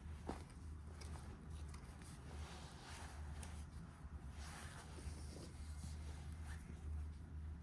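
Soft rustling and handling sounds with a sharp click near the start, over a low steady hum.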